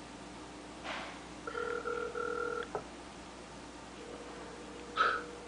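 Ringing tone of an outgoing phone call heard over a speakerphone: one steady ring, about a second long, starting about a second and a half in, with soft breaths or rustles around it.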